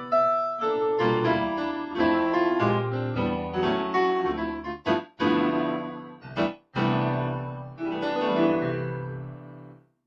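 Korg Pa700 arranger keyboard playing a piano-like factory sound: a short run of notes and chords, broken twice by brief pauses about five and six and a half seconds in, ending on a chord that dies away near the end.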